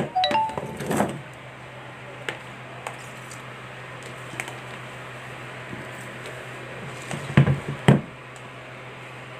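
Knocks and clatter of a plastic-cased analog multimeter being set down on a tile floor and its test leads handled, loudest about seven and a half seconds in, with a few lighter taps earlier. A steady low hum runs underneath.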